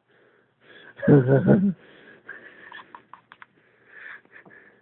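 A deliberately forced belch, one low burp lasting under a second about a second in, followed by a few faint clicks.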